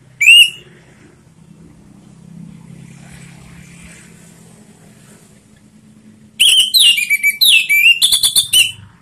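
Orange-headed thrush singing: one short rising whistle at the start, then after a pause a loud, rapid phrase of varied whistled notes lasting about two seconds near the end. A faint low hum runs underneath.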